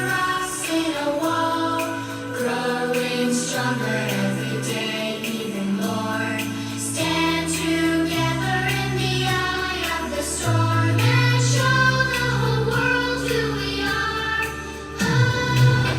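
A song with choral singing over sustained chords and stepping bass notes, played through a portable Bluetooth speaker for a sound-quality test.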